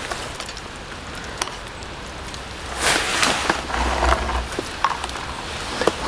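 Rain falling steadily on a canvas tent, with a few light clicks and a louder noisy stretch about three seconds in.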